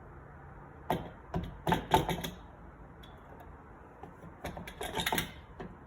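Two bursts of quick clicks and knocks, one about a second in and one near the end: metal espresso gear, such as the portafilter, being handled and tapped after the coffee is ground.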